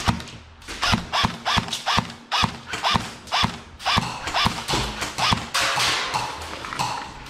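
Electric airsoft rifle firing single shots in quick succession, about two to three a second. Each shot is a sharp mechanical clack with a brief motor whine that rises and falls.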